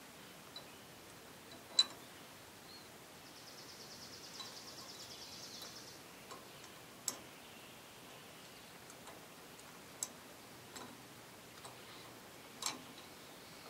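Sparse, sharp metal clicks and taps of hand tools working on a Wheel Horse garden tractor's PTO clutch linkage, the loudest about two seconds in and a few more spread through. A faint, high, rapidly pulsing trill runs for about three seconds in the middle.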